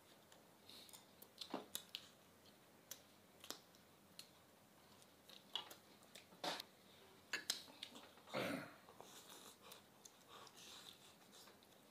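Faint eating sounds: chewing and lip-smacking with scattered small clicks of chopsticks, and one longer slurp about eight and a half seconds in.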